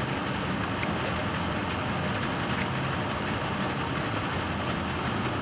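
A 1917 Model T rail car running along railroad track: its four-cylinder engine and its wheels on the rails make a steady, even running noise.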